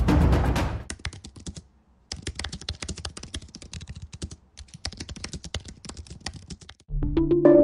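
Typing on a computer keyboard: rapid runs of key clicks broken by short pauses. Music fades out about a second in and starts again, louder, near the end.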